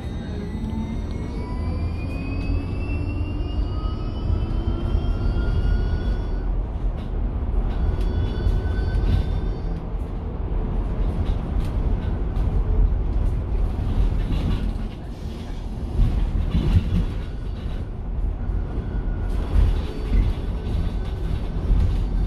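Inside a Mercedes-Benz eCitaro battery-electric bus: the electric drive whines, rising in pitch for the first six seconds as the bus accelerates, and rises again briefly a little later. Over a steady low road and body rumble, with scattered knocks and rattles in the second half.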